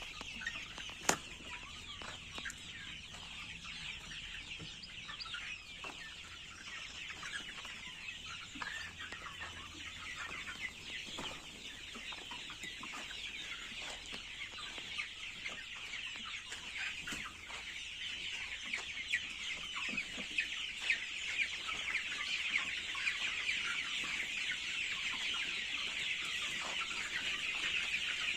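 A large flock of young country chickens, 54 days old, calling all at once in a dense chatter of many overlapping short high calls and clucks, slowly growing louder toward the end. A single sharp click sounds about a second in.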